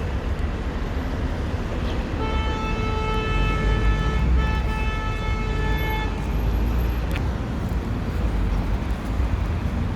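Steady rumble of city road traffic. From about two seconds in, a vehicle horn holds one long steady note for roughly four seconds, with a brief dip in the middle.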